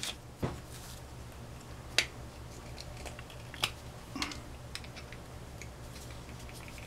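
Small hand tools and a fuel injector being handled and set down on a workbench: a handful of sparse, sharp metal clicks and taps over a steady low hum.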